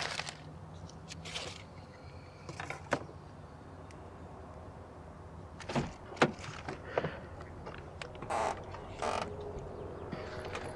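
Scattered small knocks, clicks and brief rustles of people moving about inside a parked car, over a low steady hum.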